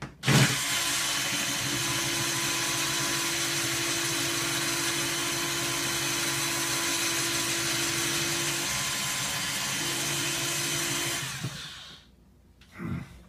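Small cordless electric screwdriver running steadily for about eleven seconds, then cutting off, as it works at a stubborn old screw in a plastic toy blaster.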